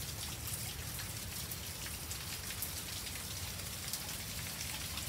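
Steady rain falling, with many individual drops ticking sharply close by over a continuous low wash.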